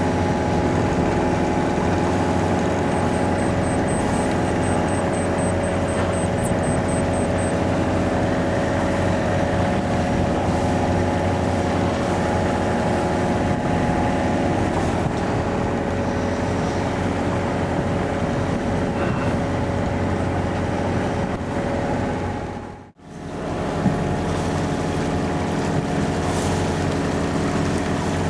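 A boat's engine running steadily under way, a constant hum with water and wind noise over it. The sound drops out briefly about three-quarters of the way through and comes back unchanged.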